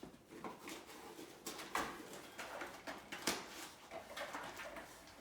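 A dog tearing into a cardboard and paper puzzle box: irregular rustling and crackling rips, the sharpest about two and three seconds in.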